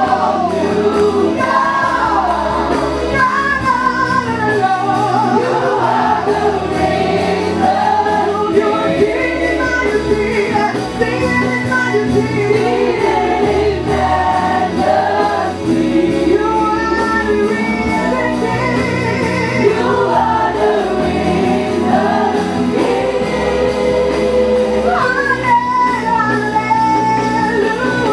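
Live gospel worship song: a woman sings lead into a microphone, backed by a group of singers and musical accompaniment.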